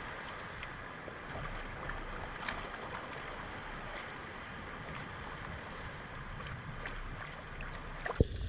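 Underwater ambience on a dive: a steady watery hiss with many faint scattered clicks and crackles. Near the end a sharp knock, then the sound changes to a lower rumble.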